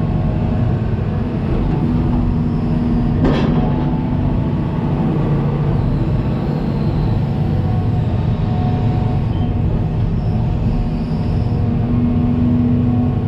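Hitachi 350 long-reach excavator's diesel engine and hydraulics running steadily, heard from inside the cab as the arm and grading bucket are worked; the pitched hum strengthens twice, about two to four seconds in and near the end. A single sharp click about three seconds in.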